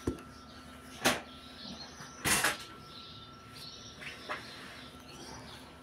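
Handling sounds from ironing a fitted sheet on an ironing board: a few sharp knocks, the loudest being a short rushing burst a little over two seconds in.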